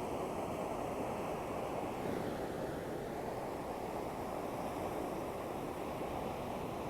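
Ocean surf: a steady wash of waves breaking on the shore.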